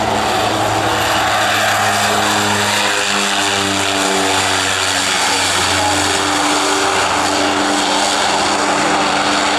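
North American Rockwell OV-10 Bronco's twin turboprop engines and propellers running steadily as the aircraft lands and rolls out. The propeller tones shift in pitch partway through.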